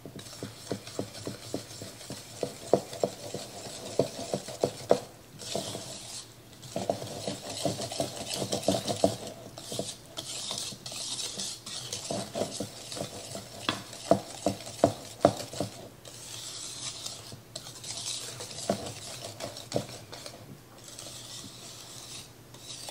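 Wire whisk beating brownie mix, eggs, oil and water into batter in a mixing bowl: quick stirring with the wires clicking and scraping against the bowl, in spells with a few short pauses.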